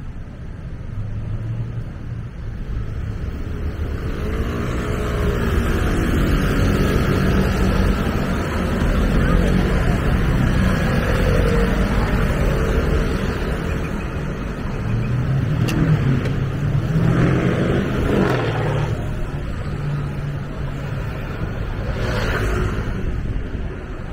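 Road traffic: motor vehicles passing close by one after another, their engine noise building from about four seconds in, with engines rising in pitch as they accelerate about two-thirds of the way through.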